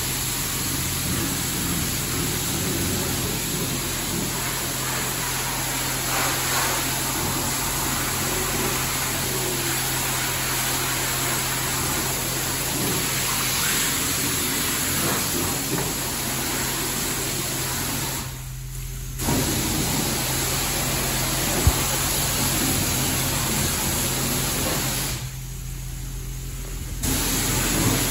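Steady rush of car wash water spray over a low, steady machine hum, with the spray dropping out briefly twice near the end.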